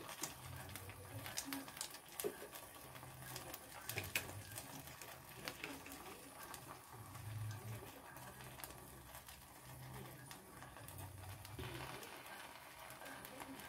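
Faint clicks and light scraping of a metal spoon spreading chilli sauce over bread slices in a tava, the clicks mostly in the first four seconds, over a low hum that comes and goes.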